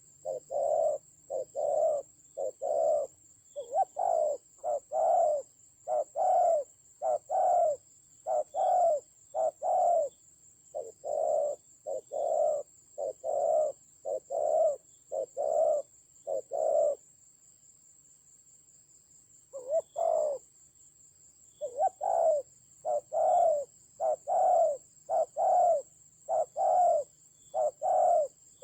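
Spotted doves cooing: a long run of short coos, one to two a second, pausing for a few seconds past the middle, over a faint steady high-pitched tone.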